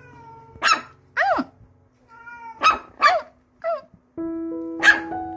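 Small puppy giving about six short, high-pitched yips, each rising and then falling in pitch, over background music.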